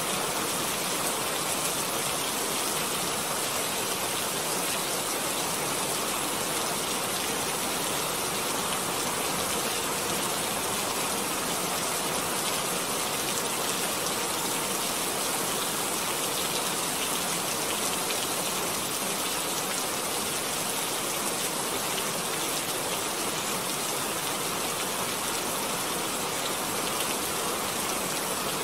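A steady, even hiss like heavy rain.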